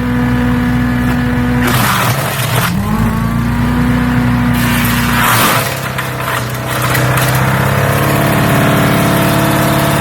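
Champion 3-inch chipper/shredder's gas engine running loud and steady, with two short rushes of branches being fed through and ground up, about two and five seconds in. The engine's pitch dips briefly under the first load and then recovers.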